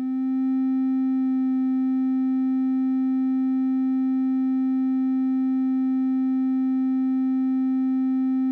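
Make Noise DPO oscillator A's triangle output holding one steady synth tone on a C. The wave is rounded, close to a sine, with a strong fundamental and only faint overtones. The tone swells in over the first half second.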